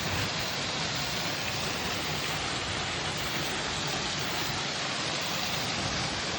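Running water of a stream, a steady rushing sound with no breaks.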